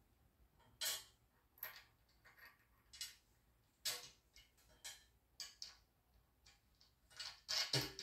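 Nut and washers being threaded by hand onto a bolt through a metal fifth-wheel hitch rail: scattered light metallic clicks and ticks at irregular intervals, a little louder near the end.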